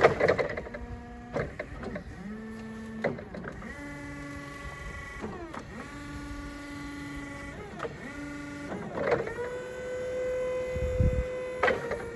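Hangcha CPDS16J 48 V three-wheel electric forklift: its electric motors whine in a series of short runs, each rising in pitch as it starts and falling away as it stops, with sharp clicks between runs. Near the end one steady whine holds for a couple of seconds as the mast is raised.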